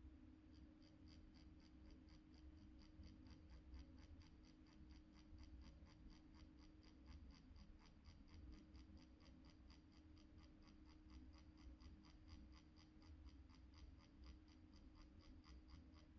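Faint steady hum of a permanent-makeup machine set to about 6.5 volts, with a quick, even scratching of the needle on skin, about four strokes a second, as it is swung back and forth in pendulum shading.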